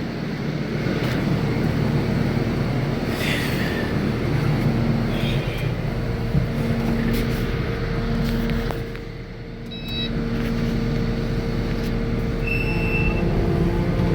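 Kubota SVL97 compact track loader's diesel engine running steadily. Its level drops briefly about two-thirds of the way through, then comes back up.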